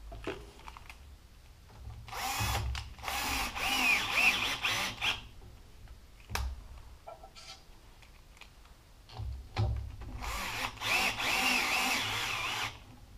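Cordless drill/driver running in two bursts of about three seconds each, starting about two seconds in and again about nine and a half seconds in, its pitch wavering as it spins a bolt at the hub of a power-feeder wheel. A single knock comes between the bursts.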